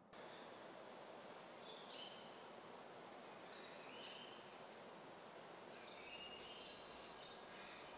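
Faint steady background hiss with birds chirping in short clusters of high notes, about five times.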